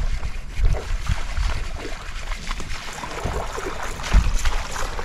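Wind buffeting the microphone on an open boat: uneven low rumbling thumps over a steady hiss.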